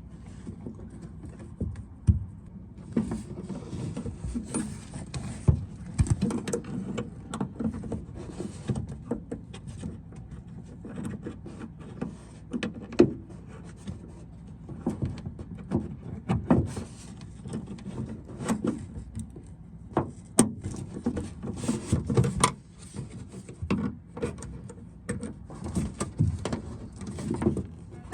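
Scattered clicks, taps and knocks of hands working inside a car door, refitting the lock rods into their plastic clips.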